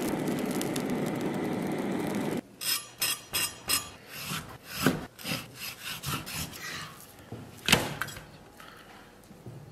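A handheld gas torch hissing steadily for about two seconds as it singes the bristles off the skin of a pork belly slab. It cuts off abruptly and gives way to a cleaver chopping pork belly into chunks on a wooden chopping board: a string of separate knocks, with one harder chop near the end.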